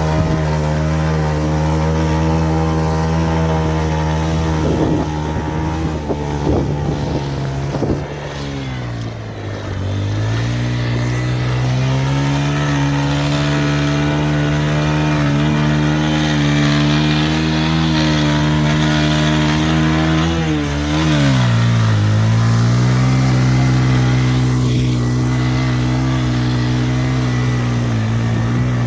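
Bajaj Pulsar 150 motorcycle's single-cylinder engine running steadily. Its pitch drops about a third of the way in and again about two-thirds through, each time easing back to a steady, slightly lower note.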